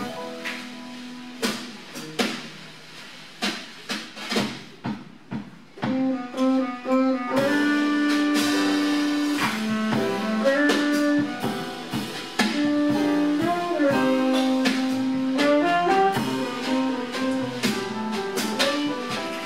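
A live jazz quartet playing: drum kit, plucked upright bass and piano. About six seconds in, the tenor saxophone comes in louder with a melody of long held notes.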